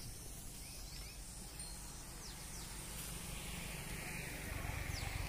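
Outdoor village ambience: a steady low rumble with a few faint high bird chirps, the rumble growing a little louder near the end.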